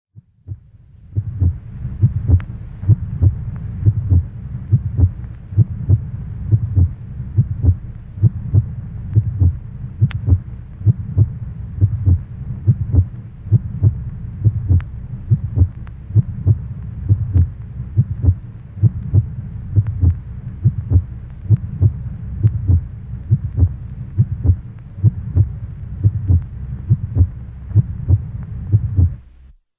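A heartbeat sound beating steadily about twice a second over a low, steady hum. It starts about a second in and cuts off suddenly near the end.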